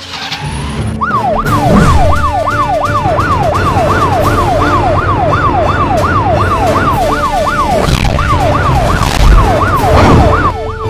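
Police siren in a fast yelp, its pitch sweeping up and down about three times a second, starting about a second in. Under it is a steady low vehicle-engine rumble.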